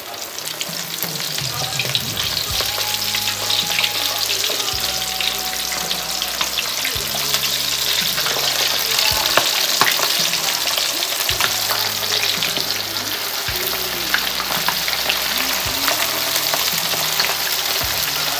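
Floured fish wings deep-frying in hot rice bran oil in a wok: a steady hiss with constant crackling and spitting, swelling over the first couple of seconds as the pieces go in.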